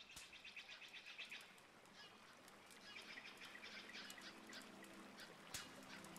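Near silence: faint outdoor ambience with scattered high chirps and clicks.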